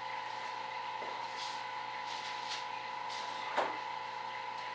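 Steady machine hum with a faint whine, under light off-camera handling rustles and one sharp knock about three and a half seconds in.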